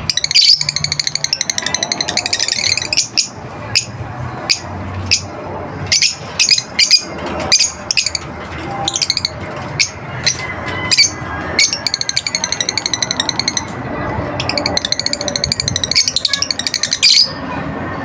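African lovebirds chattering: bursts of rapid, high-pitched chirping trills at the start and again toward the end, with many short, sharp chirps in between.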